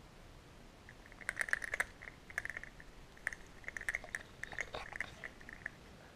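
Faint, irregular clicks and light rustling, typical of a handheld camera being moved and handled.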